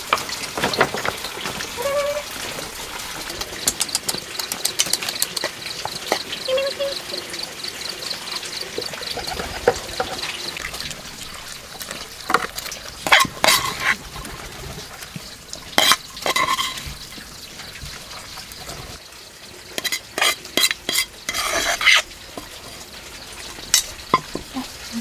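Puppies eating cooked rice from a bamboo trough: wet chewing and lapping over a steady crackly hiss, with scattered sharp clicks and knocks in the second half. A run of fast high chirps comes a few seconds in.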